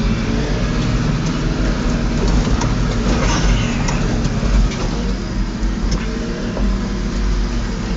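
Toyota Land Cruiser 4WD driving along a rough dirt track, heard from inside the cabin: the engine runs steadily, its pitch rising and falling a little with the throttle, over tyre and road rumble and scattered small knocks and rattles from the bumpy ground.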